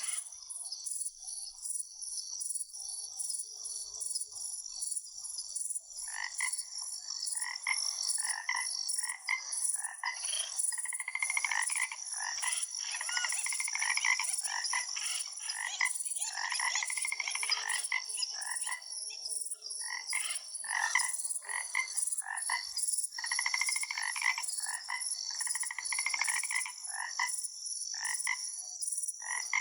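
Frogs croaking in rapid, repeated pulsed calls that start about six seconds in, over a steady high-pitched insect trill.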